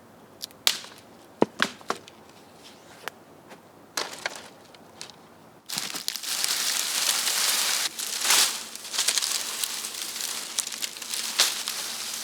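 Dry sticks snapping and knocking a few times, then, about six seconds in, a loud, dense crackling rustle of dry brush being handled.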